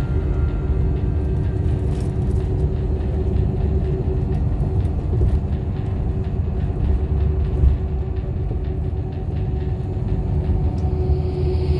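Steady low rumble of road and engine noise heard from inside a moving vehicle, with a faint steady hum and a few small clicks.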